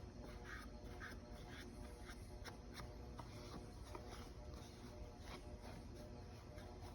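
Faint scratchy rubbing with scattered light ticks, from an applicator pad or microfibre cloth being wiped over a metal ATV wheel.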